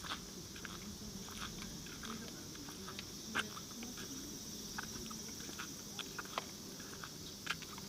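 Steady high-pitched insect chorus, with scattered light clicks and taps over it.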